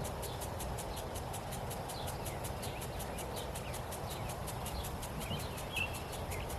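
Outdoor rural ambience: a steady, rhythmic high pulsing like an insect chorus, about six pulses a second, with scattered short bird chirps over a low background hiss.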